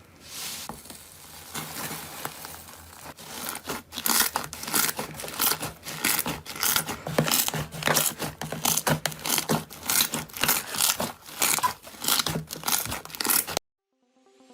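Slime being squeezed and pressed by hand, giving quick irregular crackles and pops. They are fainter at first, grow dense and loud after about four seconds, then stop suddenly near the end.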